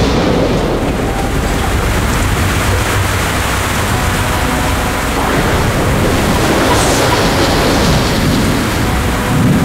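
Storm sound effect: steady heavy rain with thunder rumbling underneath.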